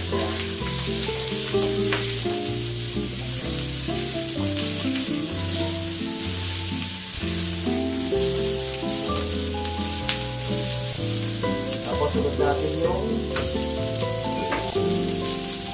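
Pork belly pieces and onions sizzling in a wok over high heat, stirred with a spatula that clicks against the pan now and then. Background music with a stepping bass line plays under the frying.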